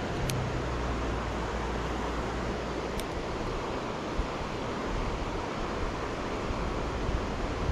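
Steady rushing outdoor noise of moving water with wind buffeting the microphone, the low rumble strongest in the first few seconds.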